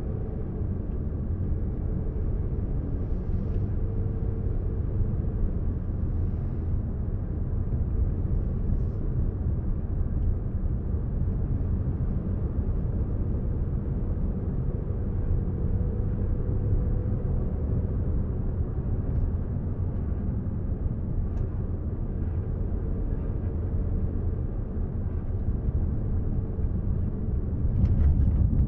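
Steady low rumble of a moving road vehicle, its engine and tyres on the road, picked up from on board, with a faint steady engine hum above it; the rumble grows louder near the end.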